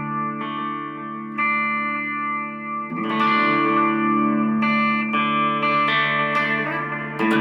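Music: a guitar played through effects with some distortion, ringing out sustained chords, with a new chord struck every second or so.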